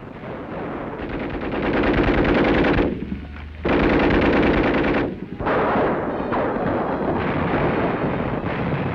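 Rapid machine-gun fire in long bursts on an old wartime film soundtrack, breaking off briefly about three seconds in and again about five seconds in before firing resumes.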